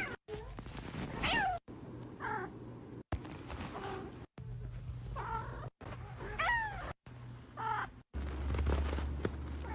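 A domestic cat meowing several times in short calls, most of them bending down in pitch. A low steady hum comes in near the end.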